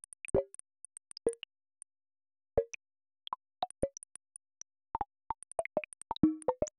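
Short synthesized plucked blips at many different pitches, sounding at irregular moments, each one marking an earthquake in a sonified earthquake catalog, its pitch set by the quake's magnitude. They come sparsely at first, then more densely from about five seconds in, with one longer, lower tone a little after six seconds.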